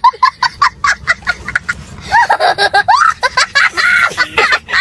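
Young child laughing hard: rapid short high-pitched bursts, then longer rising-and-falling laughs from about two seconds in.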